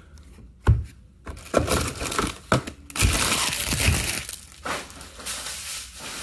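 Foil trading-card pack wrappers crinkling and being crushed by hand, with a few sharp knocks; the crinkling is densest about three to four seconds in.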